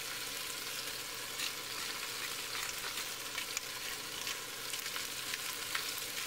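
Cornstarch-coated beef cubes sizzling as they brown in hot oil in a stainless steel pot: a steady hiss dotted with frequent small crackles.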